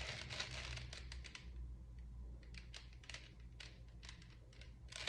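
Rubik's Cube layers being turned by hand: quick, irregular plastic clicks and clacks, thickest in the first second and a half.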